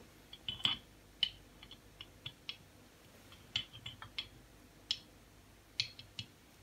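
Irregular light metallic clicks and taps as the parts of a three-jaw self-centring lathe chuck are handled and worked into place, the pinions and scroll still tight.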